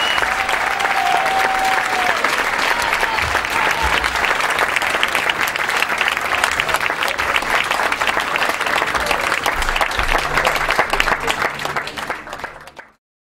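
Audience clapping steadily, the applause fading away near the end.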